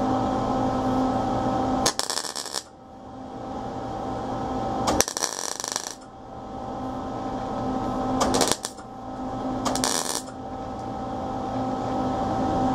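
MIG welder tack-welding thin 20-gauge sheet steel: four short bursts of arc crackle, each half a second to a second long, over a steady hum. The thin panel burns through, leaving a small hole.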